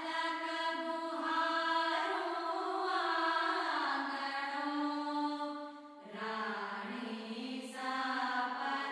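Background music: a slow, chant-like vocal line of long held notes, each moving to a new pitch after a second or two, with a brief dip about six seconds in.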